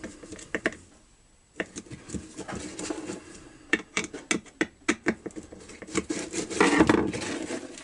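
Chainsaw recoil starter being handled while its centre screw is tightened: irregular small plastic clicks and scraping, with a louder scrape near the end.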